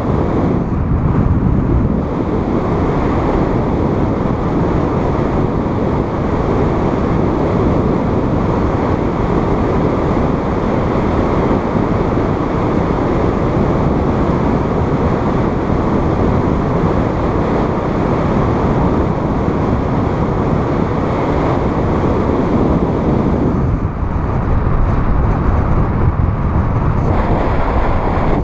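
Steady rushing wind noise on the camera microphone from the airflow of paraglider flight, getting a little louder and deeper about three-quarters of the way through.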